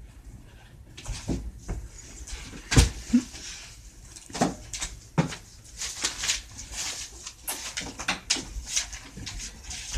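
Irregular knocks, thumps and rustling as a closet door is opened and handled, with one loud thump a little under three seconds in.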